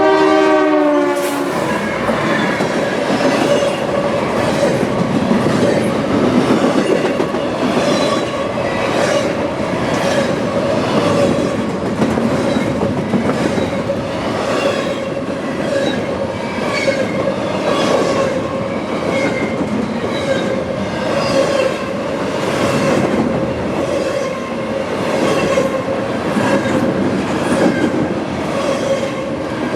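Freight train passing close by: the locomotive horn ends within the first second or two, dropping in pitch. Then the cars roll past with steady wheel-on-rail noise, a regular clickety-clack over the rail joints and a thin steady ringing tone from the wheels.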